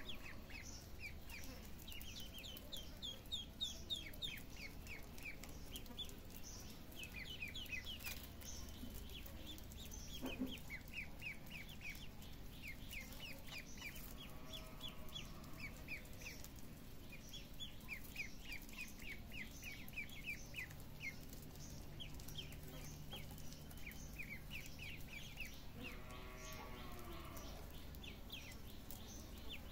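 A group of ducklings peeping: rapid runs of short, high peeps, each falling in pitch, repeated throughout. A few lower, longer calls come in twice, about halfway through and near the end.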